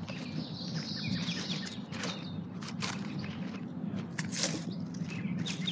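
Dry fallen leaves crackling and rustling in short, irregular bursts as a grey squirrel digs and scrabbles among them, with small birds chirping in the first half.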